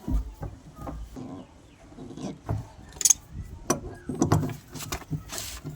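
Scattered knocks and clicks of a water-tank nipple fitting and tools being handled, with a sharp click about three seconds in and a short scrape near the end.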